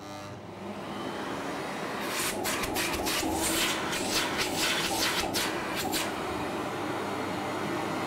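1988 Tornado Lead'air 1400 LX canister vacuum cleaner switched on, its motor spinning up over the first two seconds and then running steadily with a hum. The rush of air through the hose flickers in quick pulses between about two and six seconds in.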